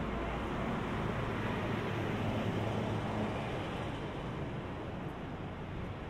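Street traffic: a motor vehicle passing close by, its low engine rumble and tyre noise loudest over the first three seconds and then easing off.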